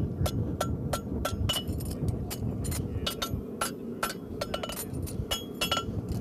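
Light hammer taps on a steel horseshoe against the anvil, about three a second in an uneven rhythm, each with a short metallic ring. The farrier is smoothing off the sharp edge left where he cut away the inside edge of the keg shoe.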